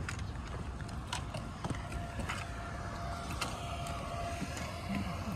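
Steady low outdoor background rumble, with a thin steady hum from about a second in and a few soft clicks.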